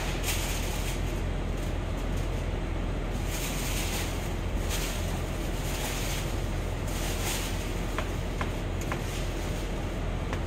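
Steady background noise of a large workshop hall, a low hum under a rushing hiss, with several brief swells of higher hiss and a few light clicks about eight to nine seconds in.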